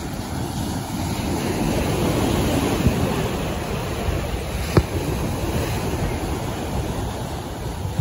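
Small waves breaking and washing up the beach, with wind on the microphone. Two short sharp pops come about three and five seconds in.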